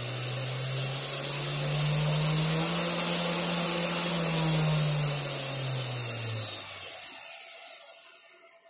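A 500 W, 48 V DC CNC spindle motor running free in reverse: a steady high whine over a low hum. It winds down and falls quiet about seven seconds in.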